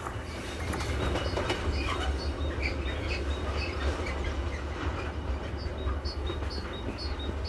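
A train running at the station, with a steady low rumble from its engine and wheels on the rails.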